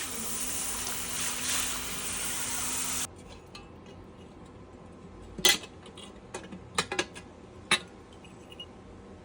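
A steady hiss with a low hum for about three seconds that cuts off abruptly, then a handful of light, sharp clinks and clicks, like small metal parts knocking together.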